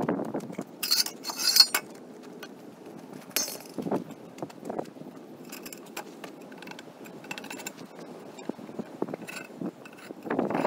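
Steel parts of a disc harrow gang clinking and scraping as the gang is taken apart by hand, with a couple of sharp metallic clinks about a second in and another a little after three seconds, among duller thumps.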